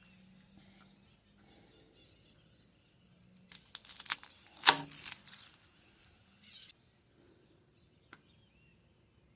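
A burst of rustling, crinkling handling noise with a few knocks about three and a half seconds in, the loudest a sharp knock, followed by a couple of faint ticks.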